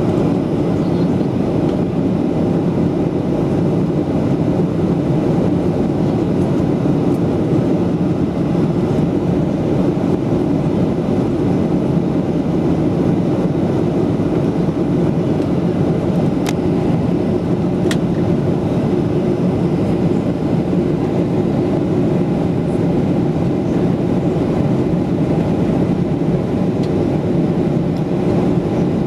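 Steady cabin noise of a Boeing 737-8200 in flight, heard inside the cabin at a window seat over the wing: the even, low rush of its CFM LEAP-1B engines and the airflow over the fuselage. Two faint clicks come a little past the middle.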